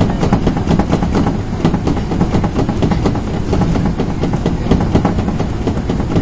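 Osaka subway 22 series train running at speed, heard from inside the leading car: a steady low rumble of wheels on rail, with frequent sharp clicks and rattles.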